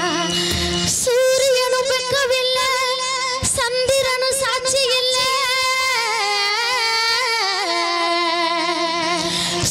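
A woman singing a Tamil folk song into a microphone, holding long notes with a wavering pitch.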